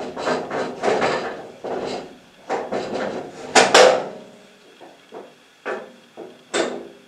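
Irregular knocks and clattering, like objects being handled and set down, with the loudest pair of sharp knocks about three and a half seconds in and another near the end.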